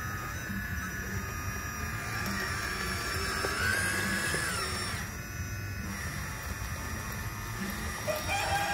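Electric motors and hydraulic pump of a 1/14-scale RC hydraulic Cat 336D excavator whining steadily as it drives its tracks to climb out of the water. The pitch rises and holds for about a second halfway through.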